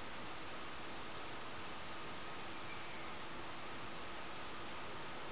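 Crickets chirping, a high chirp repeating at an even pace over a steady hiss.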